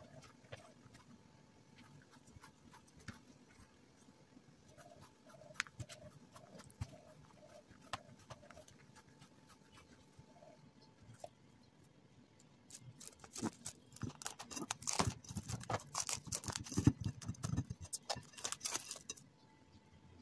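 Bread dough being kneaded and shaped by hand on a countertop, with soft scattered taps. From about two-thirds of the way in comes a louder, dense crinkling of plastic wrap being stretched over the bowl of dough. A faint run of short, evenly spaced chirps sounds twice in the first half.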